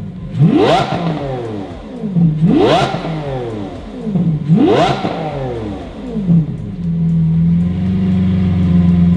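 Lamborghini Aventador SVJ's V12 on its standard exhaust, revved stationary in three quick blips about two seconds apart, each climbing fast and falling back. It then holds a steady note for the last two seconds.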